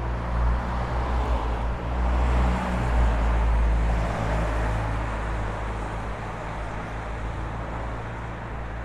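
Street traffic: a motor vehicle passes close by, its low engine rumble and road noise swelling about two to three seconds in, then fading.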